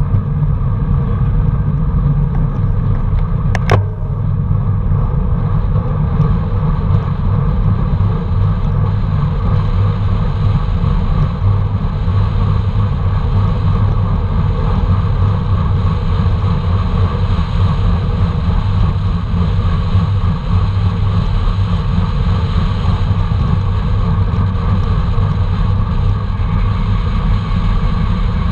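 Steady rumble of riding along the road: wind buffeting the microphone of a moving camera, mixed with road noise from the tyres. There is one sharp click about four seconds in.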